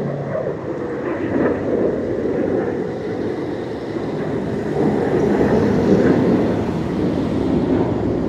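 Loud, continuous low rumbling from the sky, jet- or rocket-like, swelling about five seconds in and easing toward the end. Its source is unknown; the recorder wonders whether it is strange-sounding thunder.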